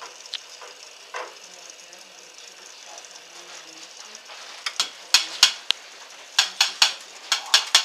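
A small amount of water heating in an aluminium Pepsi can on a gas burner, not yet steaming: a steady sizzling hiss. From about halfway through, a run of sharp, irregular pops and clicks comes in.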